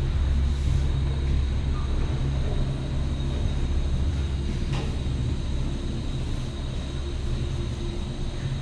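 Ten-seat Doppelmayr gondola cabin running on its cable, heard from inside the cabin: a steady low rumble and hum with a faint high whine, and a faint click about five seconds in.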